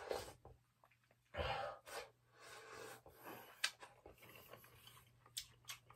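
A person breathing out heavily several times, then a few light clicks of chopsticks against a stainless steel bowl while eating from it.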